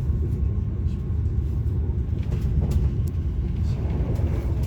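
Steady low rumble inside the passenger cabin of a moving Italo high-speed train, with a few faint ticks.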